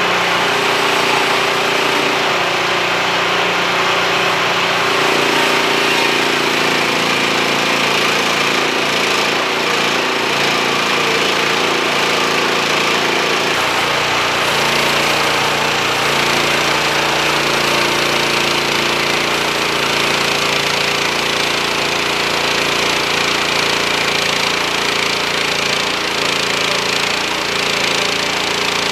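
Hudson portable bandsaw mill running under load, its band blade cutting through a black walnut log. The engine note shifts a few times as the cut goes on.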